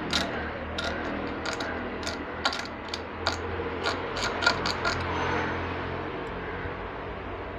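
Irregular sharp clicks and taps of a hand tool working on an arc-damaged circuit board, about a dozen in the first five seconds, over a steady low hum.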